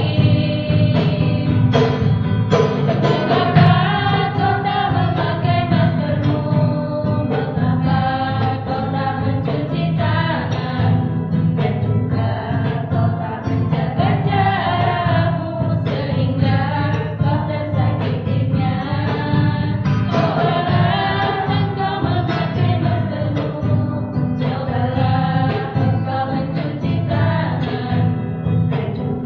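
Music with singing voices over a steady accompaniment.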